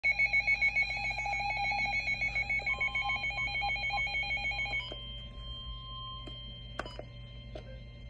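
Weather alert radios sounding a severe thunderstorm warning alarm: a fast-pulsing electronic beep, joined about three seconds in by a steady tone near 1 kHz, the NOAA Weather Radio warning alarm tone. The pulsing beep cuts off near five seconds in, leaving the fainter steady tone and a few button clicks.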